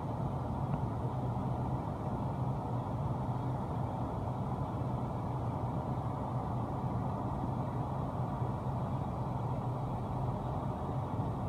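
Car engine idling, heard from inside the cabin as a steady low hum while the car creeps forward at walking pace.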